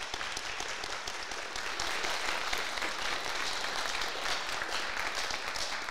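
Audience applauding, many people clapping at once at a steady level.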